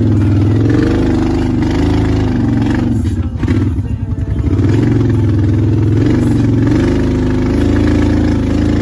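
Kawasaki Teryx side-by-side's engine running while under way, its pitch rising and falling with the throttle. It eases off briefly about three seconds in, then pulls again.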